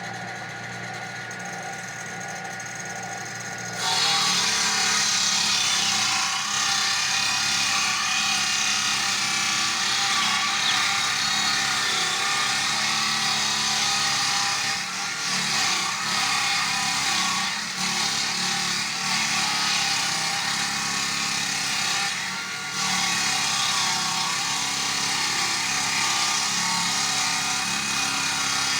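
Chainsaw idling, then opened up to full throttle about four seconds in and cutting into wood, running loud and steady with a brief drop in speed a little past the middle.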